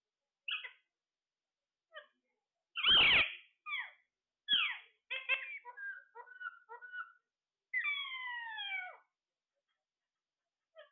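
Parrot calling: a string of short squawks and whistled notes with gaps between them. The loudest is a harsh squawk about three seconds in, and a long falling whistle comes near eight seconds.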